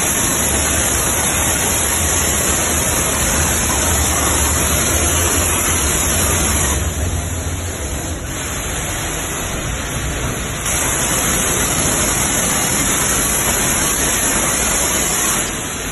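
High-pressure water jet from a hand-held spray gun hissing steadily as it washes down a sealed stainless-steel panel PC. It eases briefly about seven seconds in and drops off just before the end, with a low hum underneath in the first half.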